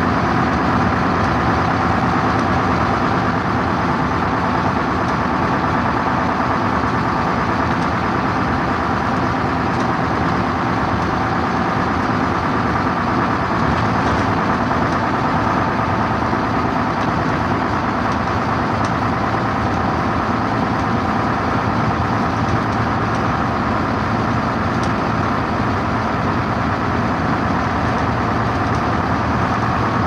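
London Green Line coach's engine running steadily, heard from inside the passenger cabin, with an even drone that does not change.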